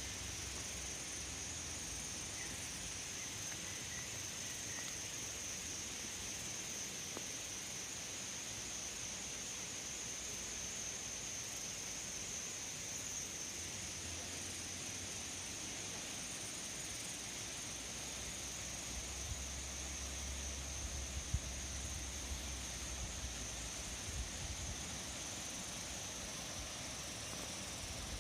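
Insects droning in one steady, high, unbroken note over a constant hiss, with a few faint low bumps near the end.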